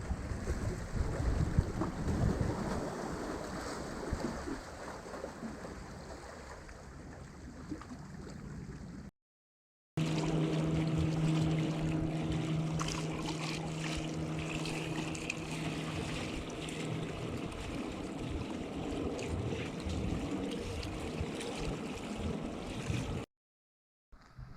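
Underwater sound picked up by a GoPro inside its waterproof housing: a muffled rush and rumble of moving water. The sound cuts out briefly twice. In the second stretch, a steady low hum sits over the water noise for several seconds and then fades.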